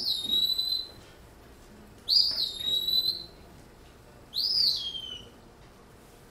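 Recorded song of an eastern wood-pewee played through a speaker: three slurred whistles, each rising then falling and lasting about a second, about two seconds apart.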